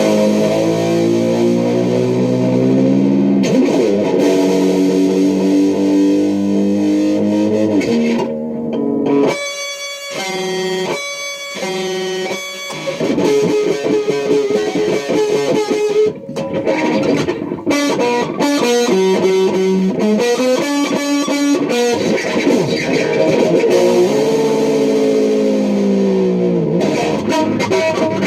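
Electric guitar played through effects with some distortion. Long notes bend and glide in pitch, broken up by short runs of single notes.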